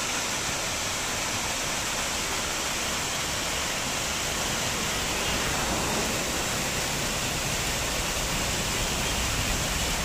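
Waterfall falling in several streams down a rock face into a pool: a steady, even rush of water.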